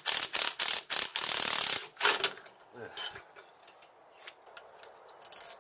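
Cordless driver with a socket on the bolt in the bottom of an upside-down motorcycle fork leg, run in short rapid bursts about four or five a second, then held on for just under a second. A clatter follows about two seconds in, then only faint clicks.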